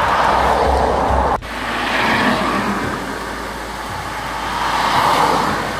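Wind and tyre noise of a car driving along a highway, heard from inside the moving car, swelling as oncoming vehicles pass near the start and again near the end. The noise breaks off suddenly about one and a half seconds in, then picks up again.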